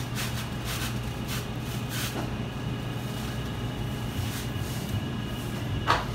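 Steady low hum of butcher-shop machinery, with faint wet rustles and small clicks as lamb casing is worked onto a sausage stuffer's horn, and one sharper click near the end.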